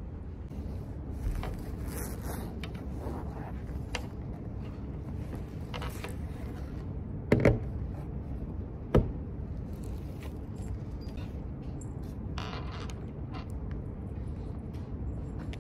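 A laptop set down on a wooden table: a double knock, then a second single knock about a second and a half later, over a steady low room hum. Softer scraping and rubbing follow as the laptop is handled and its lid is opened.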